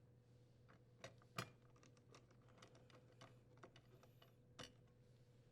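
Faint, scattered light clicks and taps of hand tools and metal parts being handled during dishwasher reinstallation, the loudest a little over a second in. Otherwise near silence with a low steady hum.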